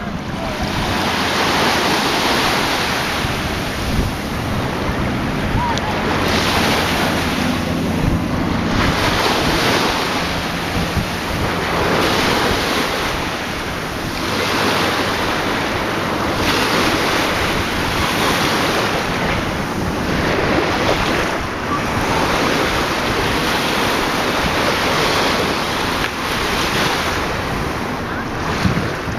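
Heavy wind buffeting the microphone in surges every couple of seconds over the rush of sea water, with a low engine hum underneath for roughly the first ten seconds.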